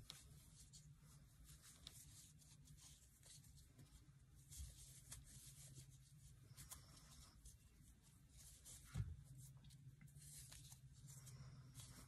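Near silence: faint scratching and rubbing of a metal crochet hook drawing flat tape yarn through stitches, over a faint low hum, with one soft thump about nine seconds in.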